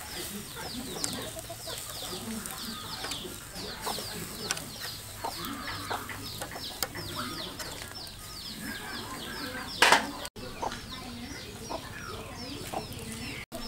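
Fowl, likely chickens or chicks, peeping in a steady run of short, high chirps that fall in pitch, about four or five a second. There is one brief loud noise about ten seconds in.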